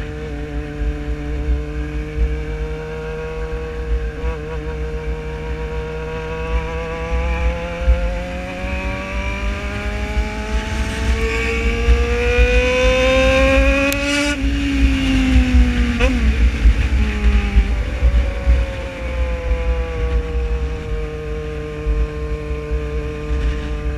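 Motorcycle engine running under way, heard from the bike itself. Its note climbs steadily for several seconds, drops sharply with a click about halfway through, then slowly sinks. Wind rumbles on the microphone throughout.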